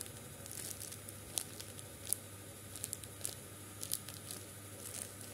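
Plastic wrapping crinkling in short, scattered crackles as small squishy toys are handled and squeezed.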